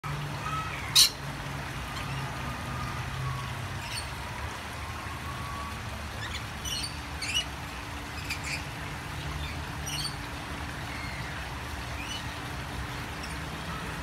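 Rainbow lorikeets calling: one loud, sharp squawk about a second in, then a scattering of brief, shrill chirps, over a steady low hum.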